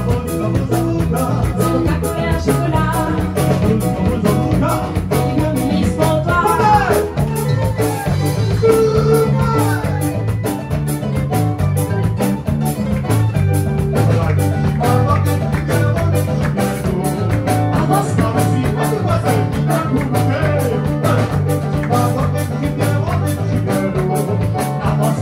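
Live band playing an upbeat Réunionese folk song, with bass line, drum kit, electric guitar and a singer's voice.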